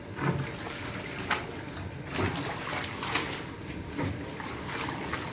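Hot direct-black dye liquor sloshing and splashing in a steel vat as cotton fabric is turned with a wooden stick, with a surge about once a second over a steady hiss. The fabric is being stirred at intervals in the near-boiling bath so the colour fixes evenly.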